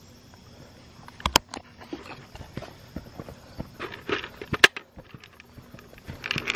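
Footsteps on grass with scattered clicks and knocks, two of them sharp and loud, about a second in and again past the middle.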